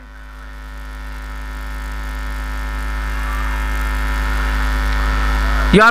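Steady electrical mains hum in the commentary sound feed, a low buzz of many even overtones, growing steadily louder as it runs, until the commentator's voice returns at the very end.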